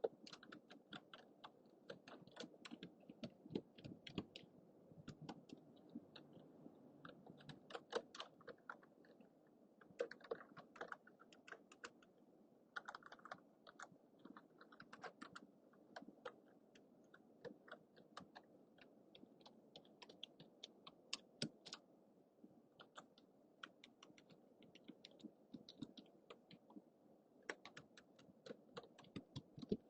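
Typing on a computer keyboard: a quiet, continuous run of irregular key clicks with occasional brief pauses.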